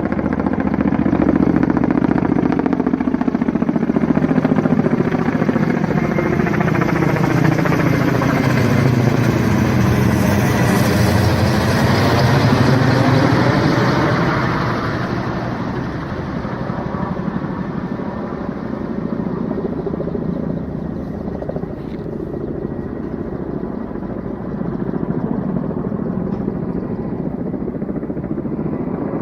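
Firefighting helicopter's rotor and turbine, loud as it passes close overhead about eleven seconds in, then a little quieter as it moves off.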